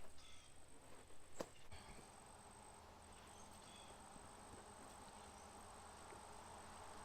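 Near silence, with a few faint clicks in the first two seconds and a faint, thin, high steady tone.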